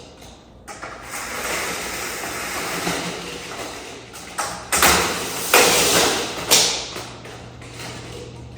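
Window blinds being opened: slats rattling and scraping, then several loud clattering knocks around the middle.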